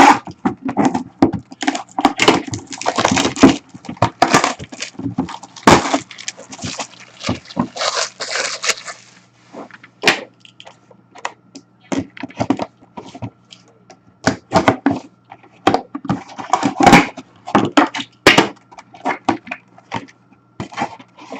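Packaging being torn open and handled by hand: a run of crinkling, tearing rustles, then scattered clicks and taps.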